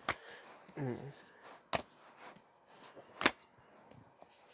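Comic books being handled and set down, with three sharp taps about a second and a half apart.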